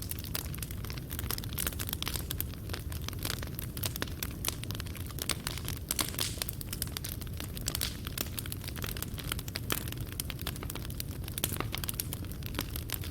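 Fireplace fire burning steadily, with a low rumble of flame and frequent small crackles and pops as the wood and coals snap.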